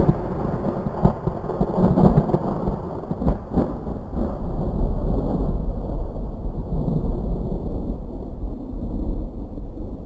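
Rolling thunder rumble used as a sound effect, starting abruptly, with a few sharper cracks in the first few seconds and then slowly fading.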